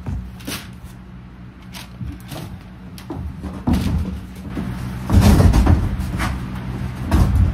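A veneered wooden panel being handled and set against wooden cabin framing: a series of knocks and scrapes, loudest about five seconds in and again near the end.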